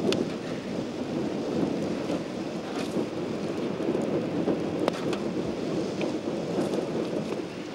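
Strong wind rumbling and buffeting steadily, with a few sharp clicks scattered through it.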